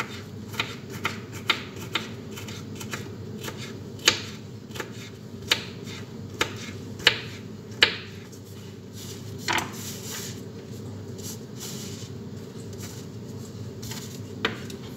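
Kitchen knife slicing bitter melon on a cutting board, the blade tapping the board in irregular sharp knocks, about one every half second to a second and a half.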